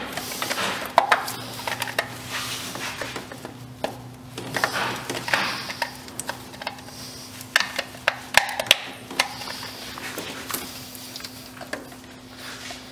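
Gloved hands working a distributor into its housing on the engine: scattered sharp metal clicks and light knocks with rustling, over a faint steady hum.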